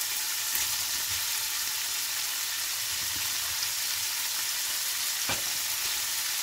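Diced firm tofu frying in olive oil in a nonstick pan, with a steady sizzle. A single light click sounds about five seconds in.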